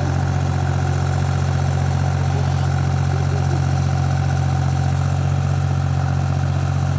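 Small backhoe's engine running steadily at a constant, even speed with a deep hum and no revving.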